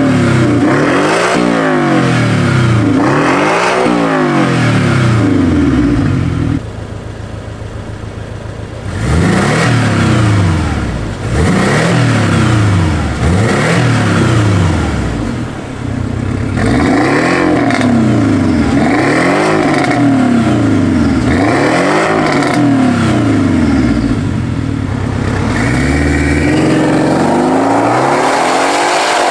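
Porsche 718 Cayman with an Fi Exhaust valvetronic cat-back exhaust being revved in a series of short blips, each rising and falling in pitch. It drops to a steady idle for a couple of seconds about a third of the way in, then revs again, and near the end the car pulls away, accelerating.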